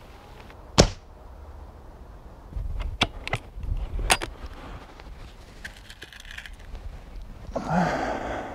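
A .177 Weihrauch HW97KT underlever spring air rifle fires once, a single sharp crack about a second in. A few metallic clicks follow as the underlever is released. Near the end the lever is pulled down to cock the spring, a longer noise lasting about a second.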